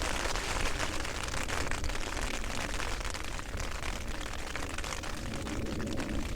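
A rain shower pattering steadily as dense fine drops, over a low rumble of wind on the microphone.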